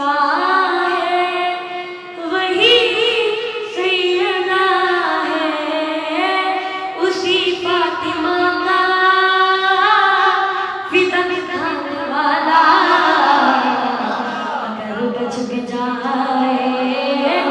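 A boy singing an Urdu manqabat (devotional song) into a microphone, holding long notes with a wavering vibrato.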